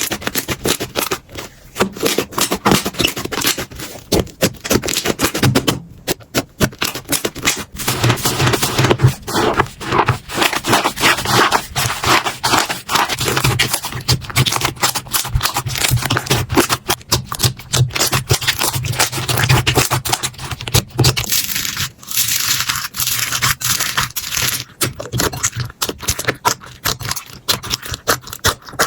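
Slime being squeezed, poked and stretched by hand: a dense, uneven run of clicks, pops and crackles. About three-quarters of the way through it changes to a lighter, higher crackle.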